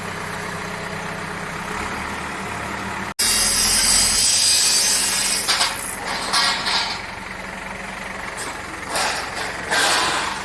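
A Cat 424B backhoe loader's diesel engine running steadily. About three seconds in, the sound cuts off abruptly and gives way to a louder, noisier stretch that surges unevenly.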